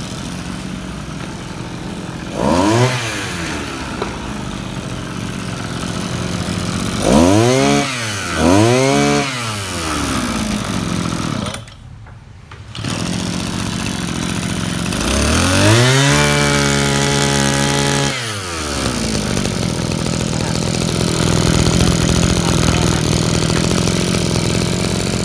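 Mitsubishi TL261 brush cutter's small two-stroke engine idling and being revved with the throttle: a short blip about 3 s in, two quick blips a few seconds later, then a longer rev held for about three seconds before falling back to idle.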